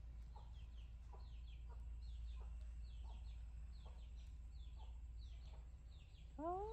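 Faint chickens clucking, with rapid high chick-like peeps a couple of times a second over a steady low rumble. A louder rising call comes near the end.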